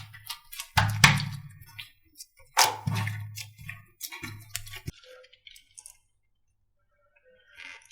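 Background music with sharp percussive hits over a low bass hum, cutting off abruptly about five seconds in, followed by a few faint soft clicks.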